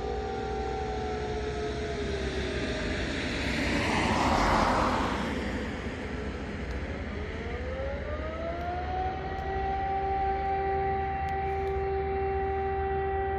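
Several E57 electromechanical sirens sounding a fire-brigade call-out alarm. They wind down in pitch, then spin back up about seven seconds in and hold a steady wail. A brief rush of noise swells and fades around the middle.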